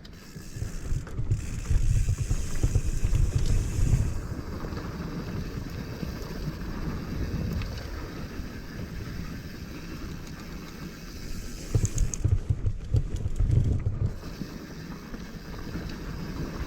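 Mountain bike rolling over a dry, rough dirt trail: tyre noise and the bike rattling over chattery ground, with wind buffeting the chin-mounted microphone. It gets louder and rougher for a couple of seconds near the start and again about twelve seconds in.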